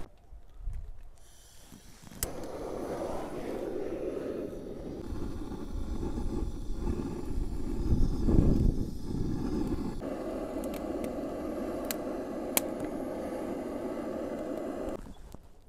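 Nurgaz butane gas torch burning with a steady rushing flame, held against split firewood to light it. A sharp click as the rush starts about two seconds in, and a couple more clicks near the end.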